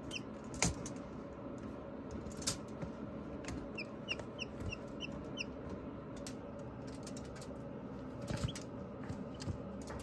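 Newly hatched chick peeping: a quick run of about six short, high peeps around four to five and a half seconds in, over a steady background hiss, with a few faint taps.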